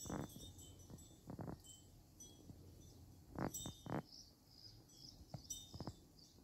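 Faint chime-like tinkling: a handful of short struck notes, several close together about three and a half seconds in, over thin high twittering.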